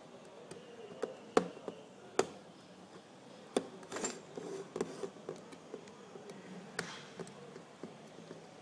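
Handling noise: a phone being turned and fingered against a wooden tabletop, giving a scattered series of sharp clicks, taps and knocks. The loudest come about a second and a half and two seconds in.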